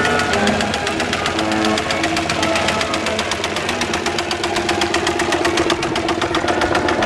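Miniature steam traction engine running past close by, its exhaust beating fast and evenly, about ten beats a second.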